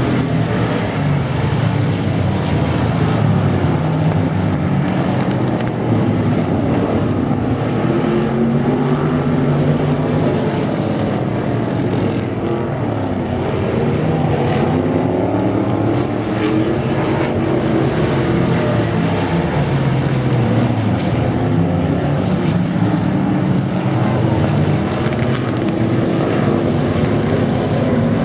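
Dirt-track race car engines at full race pace, their pitch repeatedly rising and falling as the cars accelerate and lift.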